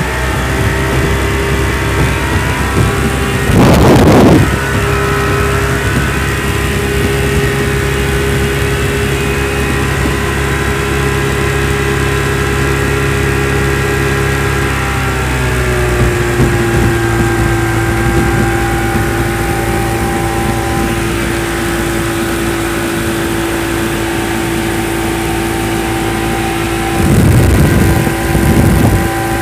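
1960 Mercury Merc 700 two-stroke outboard running steadily under way, its pitch dropping a little about halfway through as the throttle eases, then holding. Brief louder rushes of noise come about four seconds in and again near the end.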